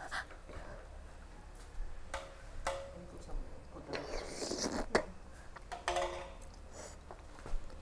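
A person eating papeda, sticky sago porridge in fish broth, from a spoon: a wet slurping about four seconds in, then a sharp click. Smaller mouth noises come before and after.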